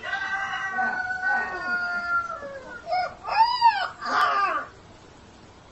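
A puppy howling. One long call slowly falls in pitch, followed by a short yip and two shorter howls that rise and fall, and the howling stops about five seconds in.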